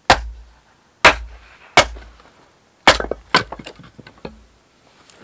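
Hand-forged axe striking and splitting a short log on a chopping block: five sharp wooden cracks, then a light clatter of split pieces.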